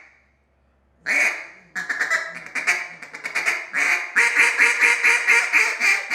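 Acrylic Freak duck call from Elite Duck Calls blown in mallard hen quacks. After about a second of silence comes one longer quack, then a string of spaced quacks, and from about four seconds in a fast, even run of quacks at roughly five a second.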